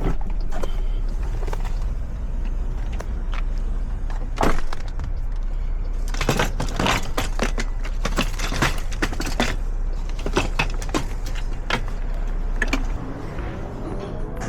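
Car's engine running with a steady low rumble, overlaid by a string of irregular clicks and rattles, thickest around the middle. The rumble drops away shortly before the end as music comes in.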